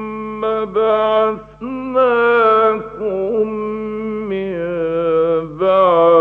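A male reciter chanting the Quran in the melodic, drawn-out Egyptian radio style, in a strong voice: long held notes that bend and waver, with short pauses between phrases. A faint steady low hum from the old recording lies underneath.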